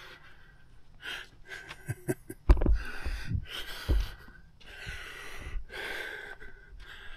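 A man breathing heavily, a string of loud breathy exhales, while the camera is picked up and handled, with two dull handling thumps about two and a half and four seconds in.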